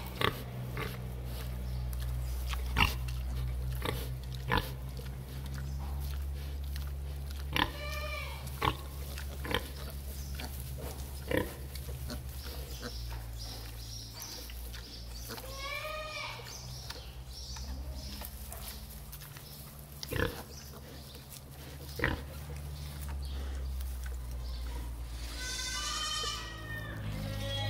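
Newborn piglets squealing in short, high-pitched arching calls, once about eight seconds in, again about sixteen seconds in, and several in a row near the end. Under them runs a low steady hum, with scattered sharp clicks.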